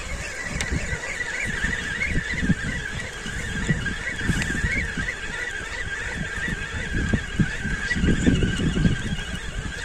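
Wind buffeting the microphone in irregular gusts, over a steady high-pitched chirring of insects.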